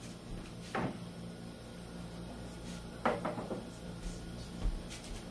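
Kitchen clatter from things being set down and handled at the counter: two short knocks with a brief rattle about two seconds apart, then a softer thump near the end, over a low steady hum.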